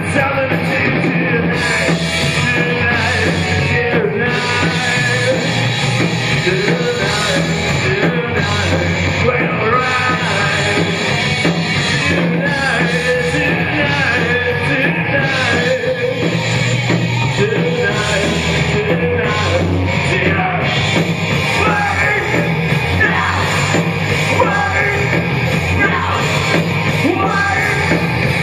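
Live rock band playing a punk rock song: a male singer at the microphone over electric guitar, bass guitar and drum kit, loud and continuous.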